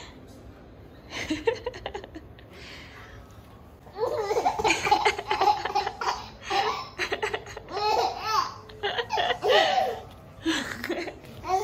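A person laughing heartily in repeated high-pitched bursts, starting about four seconds in after a quieter stretch.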